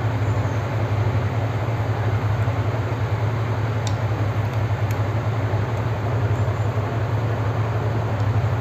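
A steady low mechanical hum from background machinery, unchanging throughout, with a couple of faint clicks about four and five seconds in.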